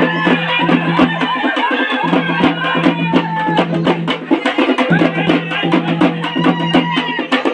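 Live folk procession music: barrel drums beaten in a fast, dense rhythm while a wind pipe plays a wavering melody over them, with a low steady hum that drops out and comes back.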